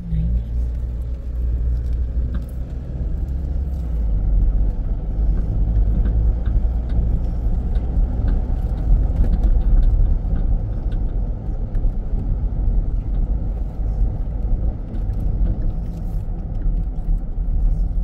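Jeep driving along a back road: steady low engine and road rumble.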